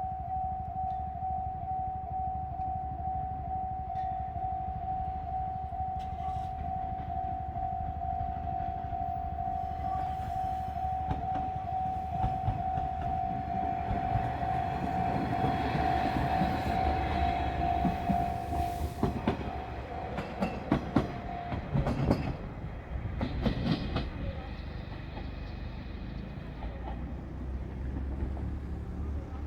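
Japanese level crossing alarm ringing steadily for about 19 seconds, then stopping. Meanwhile a JR Shikoku diesel railcar passes with engine rumble, its wheels clacking over the rail joints, loudest a little after the alarm falls silent.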